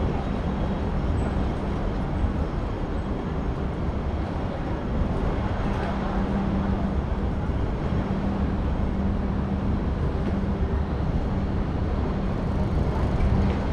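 Steady city traffic noise: a low rumble with a constant low hum running through it and no distinct events.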